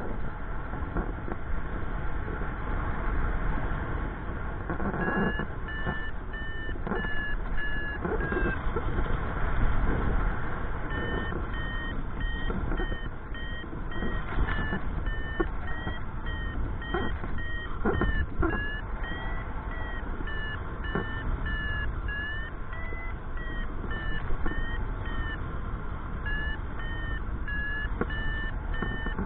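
Paragliding variometer beeping in quick repeated tones whose pitch drifts up and down, the sign of the glider climbing in rising air; the beeping stops twice for a few seconds. Steady wind noise rushes over the microphone underneath.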